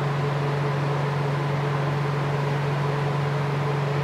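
Cryolipolysis slimming machine running with its handle's vacuum suction on at 60 kPa: a steady hum with a strong low tone and an even hiss.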